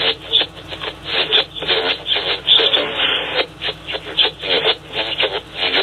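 A voice speaking over a radio broadcast, thin and telephone-like in sound.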